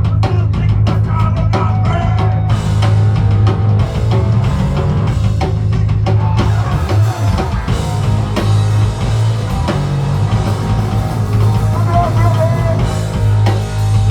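Live rock band playing loud: drum kit with distorted guitars and bass, heavy and continuous.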